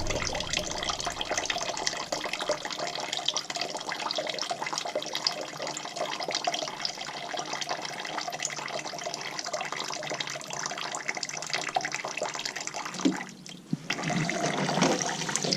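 Water running out of a Carrier furnace's drain tubing and port: condensate that had backed up behind a plugged port. It is a steady pour and trickle, easing off for a moment about thirteen seconds in.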